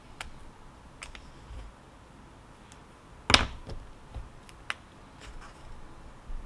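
A handful of light, sharp clicks and taps at irregular intervals, with one louder knock about halfway through, over a faint low rumble.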